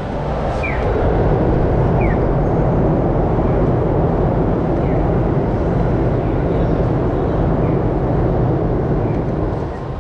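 A heavy vehicle passing close by: a steady rumbling noise that swells about a second in and eases off near the end, with a few short falling chirps in the first two seconds.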